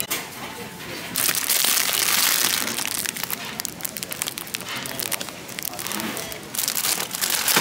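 Plastic wrapper of a multipack of instant noodles crinkling as it is handled, in two loud bursts: one about a second in and another near the end.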